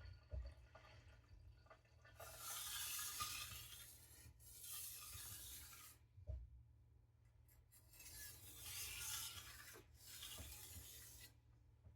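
Hand rubbing across the wet surface of a coarse sharpening stone to clean it: four faint, gritty rubbing strokes, each about a second and a half long.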